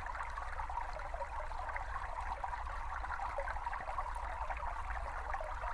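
Recorded small brook babbling steadily, its water running over stones in an even, unbroken rush.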